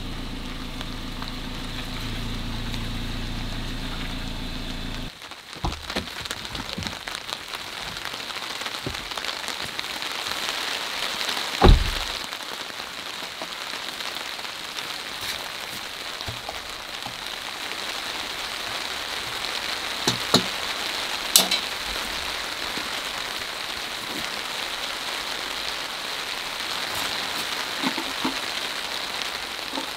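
Steady rain falling on a tarp overhead. A low hum in the first five seconds cuts off suddenly, and a few sharp knocks sound, the loudest about twelve seconds in and two more around twenty seconds in.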